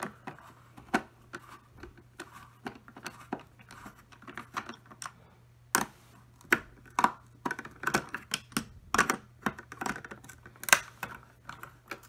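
Screwdriver backing out screws from the plastic housing of a Hoover WindTunnel Supreme upright vacuum: irregular light clicks and ticks of the tool and plastic, busier and louder in the second half.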